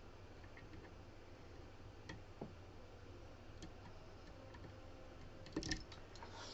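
Faint, scattered ticks of a hook pick working inside a CX5 sidebar lock cylinder, with a louder cluster of clicks and a knock about five and a half seconds in.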